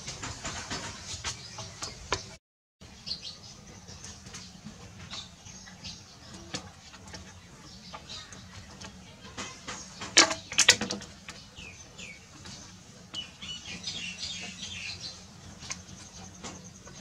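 Small birds chirping in the background in short high calls, with two sharp knocks close together about ten seconds in.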